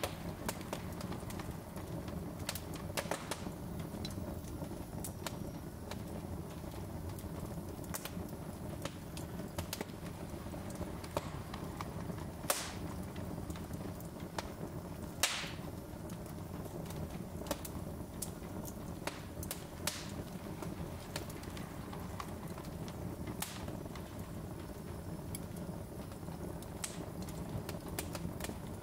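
Wood logs burning in a fireplace, crackling with irregular sharp pops over a low steady rumble; two pops stand out as louder about halfway through.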